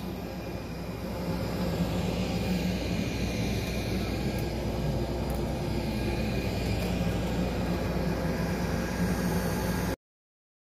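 Steady mechanical drone, a low hum under an even hiss, growing a little louder about a second in and cutting off suddenly near the end.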